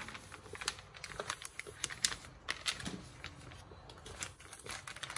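Plastic vacuum-sealer bag crinkling and rustling as it is handled and smoothed by hand, with irregular small clicks and taps.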